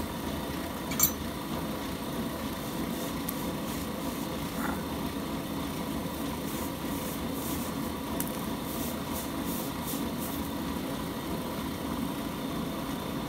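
Brake lathe running with a steady low hum. A sharp knock comes about a second in, and light rubbing and scraping follow as the arbor is handled and the spindle bore is wiped with a rag.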